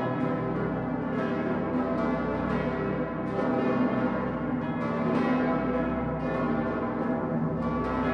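The great bell of Cologne Cathedral, the St. Petersglocke ("Decke Pitter"), ringing, with a few distant firework bangs in the background.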